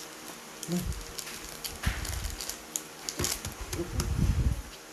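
Handling noise of small metal XLR connector parts being fiddled with by hand: scattered light clicks and a few dull low knocks.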